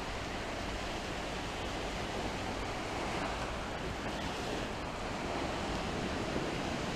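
Small sea waves breaking and washing up a sandy beach in a steady hiss of surf, with a low rumble of wind on the microphone.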